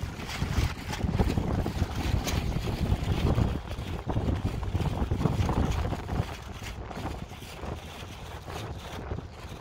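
Wind buffeting the microphone: a gusty low rumble that eases off about six seconds in.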